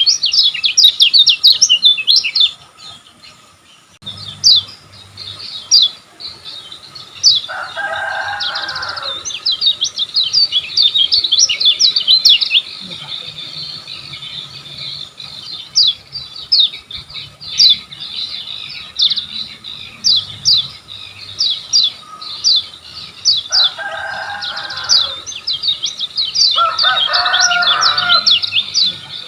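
Kecial kuning (a white-eye) singing fast and continuously: dense runs of quick, high, downward-sweeping chirps, with a short pause about three seconds in. Three short, lower, rougher calls cut in, about eight seconds in and twice near the end.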